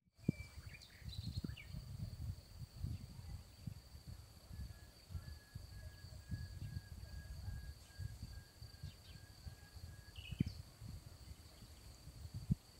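Garden ambience: small birds chirp briefly near the start and again about ten seconds in, over a steady high-pitched tone. Irregular low rumbling on the phone's microphone runs underneath.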